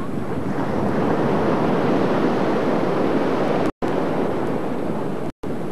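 Wind rushing over the camcorder microphone, a steady loud noise with no clear rhythm, broken by two brief drops to silence late on.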